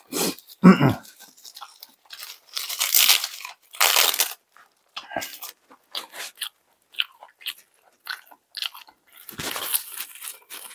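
Crisp toasted plain laver (gim) being bitten and chewed: crunching in irregular bursts, the loudest about three and four seconds in and again near the end, with small mouth clicks in between.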